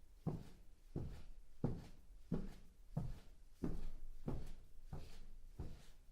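Footsteps at a steady walking pace: about nine heavy, thudding steps, roughly one every two-thirds of a second.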